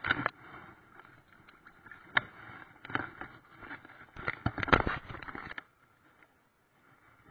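Irregular knocks, scrapes and crackles of a body-worn camera being jostled and moved about on a pebbly riverbank, with stones and gravel shifting underfoot; about five and a half seconds in it drops to near silence.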